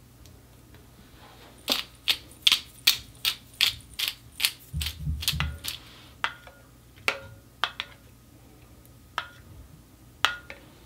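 Metal spoon clinking against the sides of a glass bowl while stirring a sauce: a quick run of about ten clinks, then a few scattered ones.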